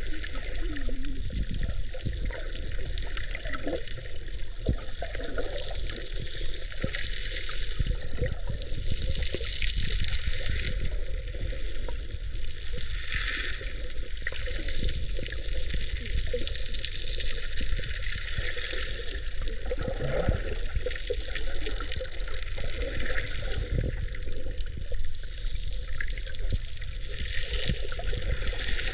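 Sea water sloshing and bubbling around a camera held at or under the surface while snorkelling: a steady wash with scattered low knocks.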